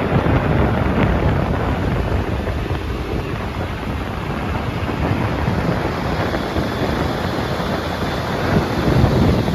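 Wind buffeting the microphone over the low rumble of diesel machinery working, swelling a little near the end.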